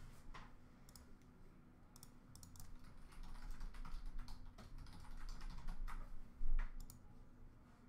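Typing and clicking on a computer keyboard in irregular runs of clicks, with one louder knock near the end.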